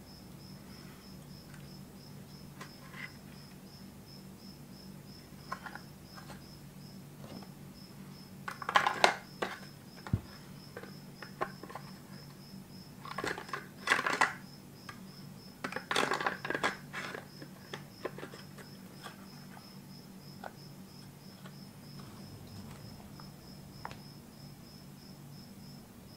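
Clicks and clatter of a clear plastic mold and axe head being handled on a workbench, in three clusters about a third, half and two-thirds of the way through. Under them run a faint, steady, high pulsing chirp at about three beats a second and a low hum.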